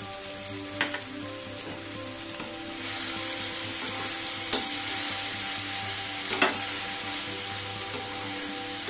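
Tomato chutney sizzling in oil in a stainless-steel pan while a steel spatula stirs it; the sizzle gets louder about three seconds in, and three sharp clicks of utensil on pan stand out.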